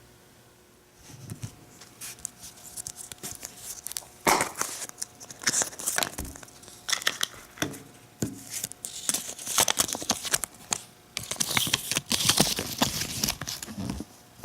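Plastic packaging crinkling and tearing as a gashapon squishy toy is unwrapped: irregular crackles and sharp clicks coming in spurts, busiest and loudest toward the end.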